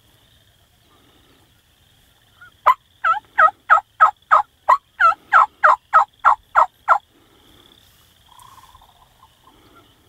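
A run of about fourteen loud hen-turkey yelps, about three a second, starting a little under three seconds in and lasting about four seconds.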